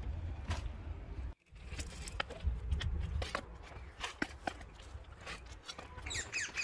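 A small metal hand trowel scraping and scooping loose compost into a cut-down plastic milk bottle, with scattered clicks and crackles of soil and plastic over a low rumble. The sound breaks off briefly about a second and a half in, and a few short high squeaks come near the end.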